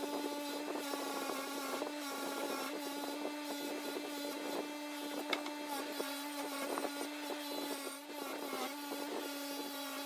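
Record Power bench grinder running with a steady hum while a cast metal piece is worked against its spinning wheel, adding a scratchy brushing noise. A single sharp click about five seconds in.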